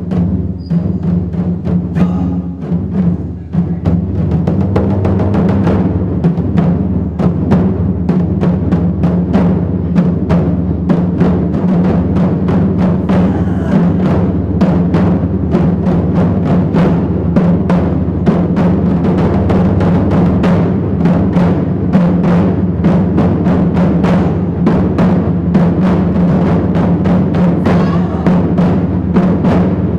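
Taiko ensemble drumming: several players striking rope-laced barrel drums with wooden sticks in a fast, dense, continuous rhythm. It is a little quieter for the first few seconds, then holds steady and loud.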